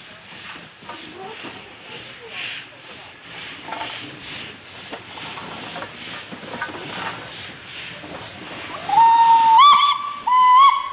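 Steam locomotive LNER J27 65894, an 0-6-0 tender engine, working slowly past with exhaust beats about twice a second and hissing steam from its open cylinder drain cocks. Near the end come two loud blasts on a steam locomotive whistle, each sliding up in pitch as it opens.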